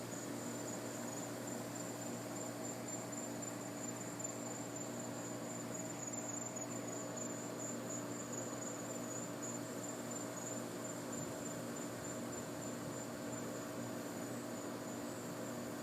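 Steady high-pitched chirring of night insects, such as crickets or katydids, over a low steady hum. No thunder is heard.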